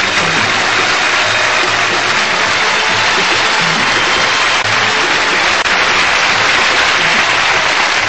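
Studio audience applauding steadily over theme music.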